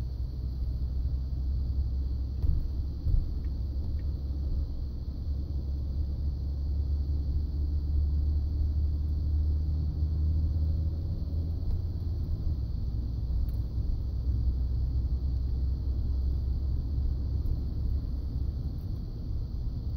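Ford F-150 pickup running, a steady low rumble with a faint tone that rises and falls in the middle.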